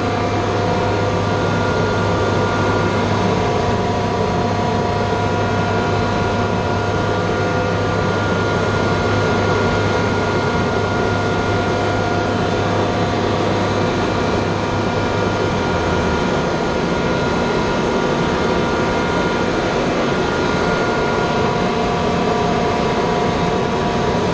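Steady, loud drone of running machinery with several steady whining tones over it; a low hum cuts out about two-thirds of the way through.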